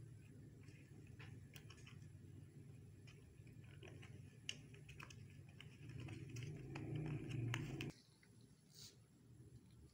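Light plastic clicks and taps from a child handling a toy makeup compact on a tabletop. About six seconds in comes a louder stretch of rustling and rubbing that stops abruptly.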